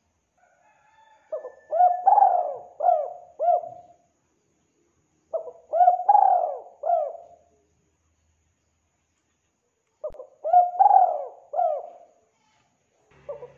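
Spotted dove cooing: three phrases of several low coos each, a few seconds apart, and a fourth phrase starting near the end.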